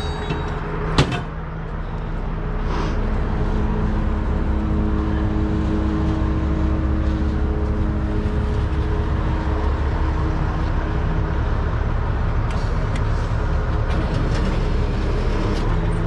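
Heavy wrecker's diesel engine running steadily, with a sharp knock about a second in; the engine gets louder about two seconds in and then holds a steady pitch.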